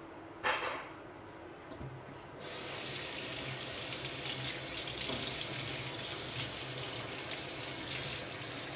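Kitchen tap turned on about two seconds in, then running steadily into a stainless steel sink as a soft-shell crab is rinsed under the stream.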